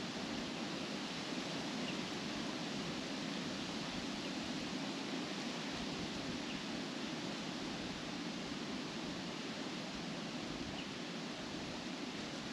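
Wind blowing steadily through trees, the leaves rustling in an even, unbroken rush.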